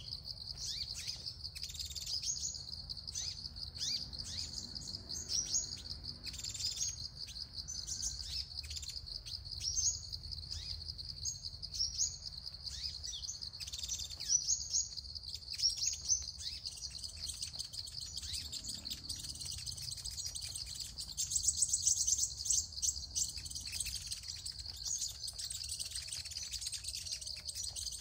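Sunbirds giving short, high, thin chirps, repeated every second or so and busiest about three quarters of the way through, over a steady high-pitched whine.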